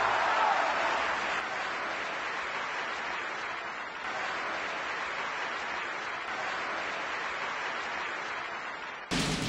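Audience applause, a dense even clatter that slowly fades. Music with drum hits starts abruptly near the end.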